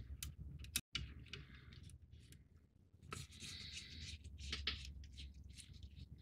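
Faint handling of small plastic model parts, a phaser array section being fitted into the hull: light rubbing and scraping, with a few small clicks in the first second.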